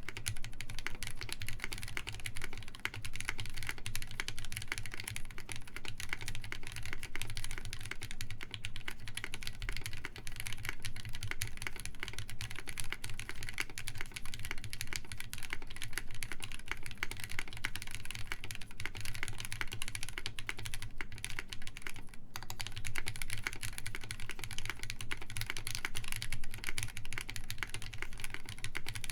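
Steady, fast typing on a Sperno59 mechanical keyboard with an FR4 plate and no foam: lubed, filmed SP Star Meteor White linear switches under GMK Maestro keycaps give a dense run of keystroke clacks, with a brief pause about 22 seconds in.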